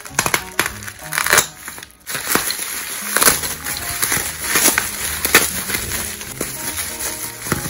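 Thick plastic bubble wrap crinkling and crackling in quick, irregular bursts as it is cut with a box cutter and pulled open by hand, over soft background music.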